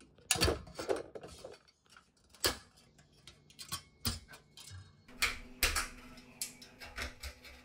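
Scattered small clicks, taps and light metallic rattles as a paper clip is poked into the push-in lamp-holder sockets of a fluorescent fixture and the wires are worked free, against the sheet-metal fixture housing.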